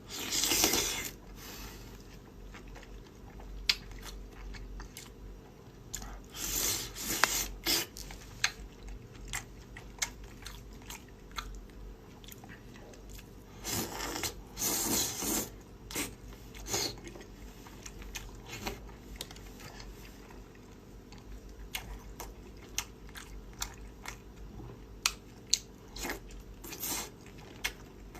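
Close-up eating sounds of a person biting and chewing crunchy food, with louder crunching near the start, about seven seconds in and around fourteen to fifteen seconds in, and small sharp clicks in between.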